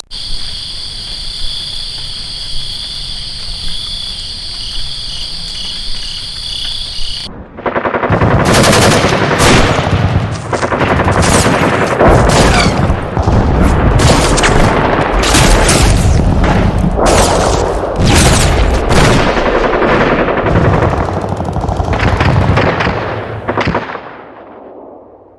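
A steady high, insect-like trilling over a low rumble, cut off about seven seconds in by a long, loud stretch of dense rapid cracks and bangs like sustained gunfire, which fades out near the end.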